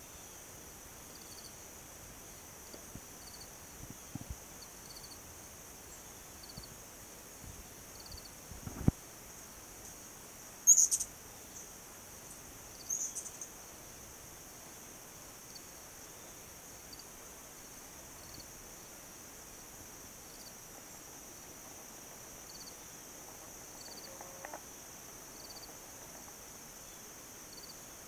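Insect chorus in a grassy field: a steady high-pitched buzz, with a softer chirp repeating about once a second. A few sharp clicks and a low thump come in the first half, and two louder, brief high chirps come a little before the middle.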